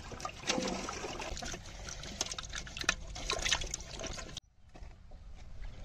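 Water splashing and trickling as fresh ginger is washed by hand in water. The sound is full of small knocks and cuts off suddenly about four and a half seconds in, leaving a faint background.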